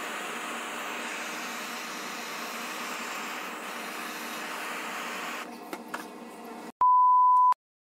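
Handheld butane torch flame hissing steadily while searing the surface of a thick giant-squid fillet, stopping about five and a half seconds in, followed by a couple of faint clicks. Near the end a loud, steady single-tone beep sounds for under a second.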